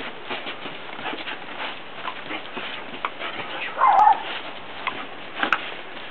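Malinois puppy playing tug, with scattered scuffs of feet and paws on grass and one short cry from the puppy about four seconds in, the loudest sound here.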